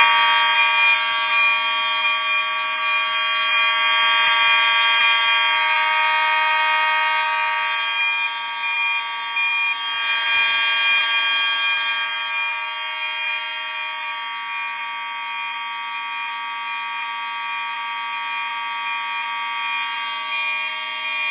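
Several fire alarm signals sounding together continuously, a Federal Signal electric fire alarm bell among them, set off from a fire alarm control panel. It is a loud steady blend of many alarm tones, with the bell's rapid ringing running through it.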